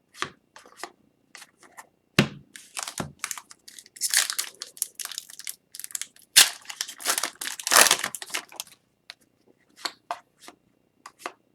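Foil wrappers of hockey card packs being torn open and crumpled, with cards handled in between: a run of crinkles and tearing rustles, heaviest in two stretches in the middle.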